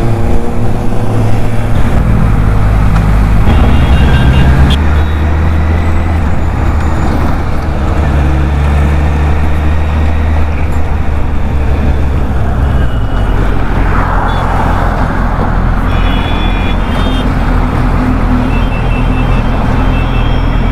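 Inline-four sport motorcycle engine running on the move, its steady note stepping up and down several times with throttle and gear changes, under heavy wind and road noise.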